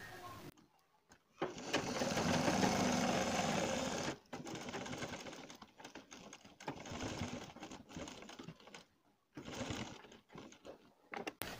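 Domestic sewing machine stitching through fabric in stop-start runs: the longest, about two and a half seconds, near the start, then a quieter stretch and a few short bursts with pauses between as the fabric is guided along.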